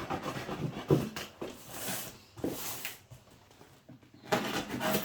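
Cardboard and plastic packaging rustling and scraping as a camera box is cut open and unpacked, in irregular bursts with a sharp knock about a second in.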